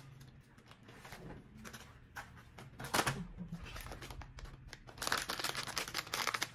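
Crinkly toy blind-bag packaging being handled and torn open: scattered crackles, one sharp rip about three seconds in, then dense crinkling from about five seconds in.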